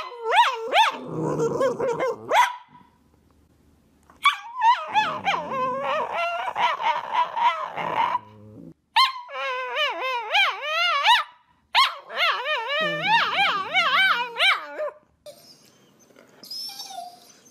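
Cavalier King Charles Spaniel vocalising in drawn-out whining howls whose pitch warbles quickly up and down, in four bouts with short pauses between.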